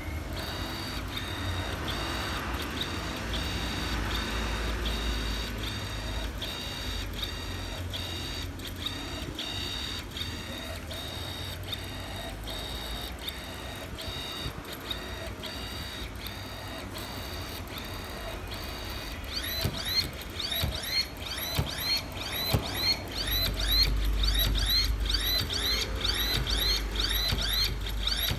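IAI RCP2 rod-type electric actuator's stepper motor whining in short repeated pulses, about two a second, as the rod makes short moves under the teaching pendant. About two-thirds of the way through, the pulses turn into louder rising chirps, the pitch sweeping up as the motor speeds up on each move.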